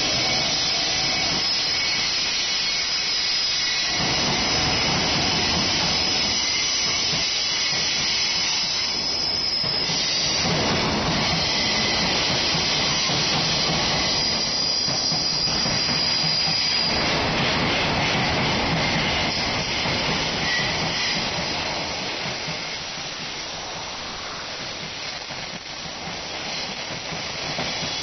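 Container freight train rolling past close by behind a JR Freight EF510 electric locomotive, a steady loud rumble of wagon wheels on the rails. The noise eases off over the last several seconds as the end of the train draws away.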